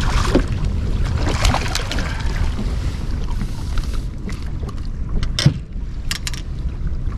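Wind buffeting the microphone in a steady low rumble, with a few sharp clicks and knocks. The loudest click comes about five and a half seconds in, followed by a quick pair.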